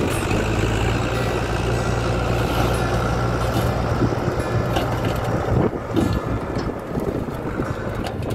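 Loaded dump truck's diesel engine running as the tipper backs up and begins tipping its soil. Its steady low drone weakens about five seconds in, leaving a rougher, uneven noise.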